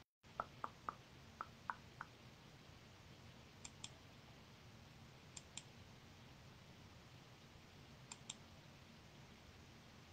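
Faint computer clicking over near silence: six light single clicks in the first two seconds, then three sharper double clicks, each pair a fraction of a second apart, spaced about two seconds apart.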